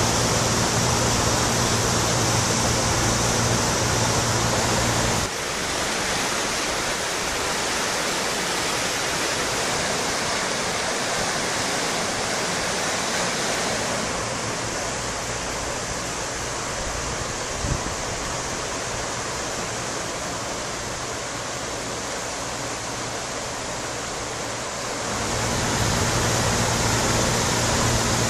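Floodwater of a swollen river rushing past in a steady, even roar of water. About five seconds in the deep rumble drops away and the sound grows thinner, and the fuller rumble comes back near the end; one small click about two-thirds of the way through.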